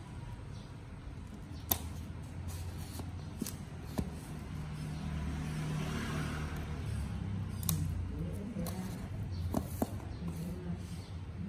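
Cardboard retail box of an Insta360 GO 2 camera being handled and opened: scattered sharp clicks and taps, with a soft stretch of cardboard rubbing about halfway through as the sleeve slides.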